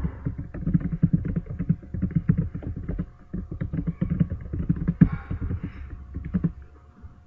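Typing on a computer keyboard: a fast, steady run of keystrokes that stops about six and a half seconds in.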